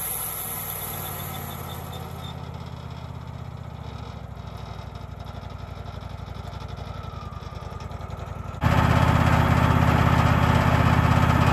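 Wood-Mizer LX portable sawmill's engine running steadily. About nine seconds in it becomes abruptly much louder, heard from close by.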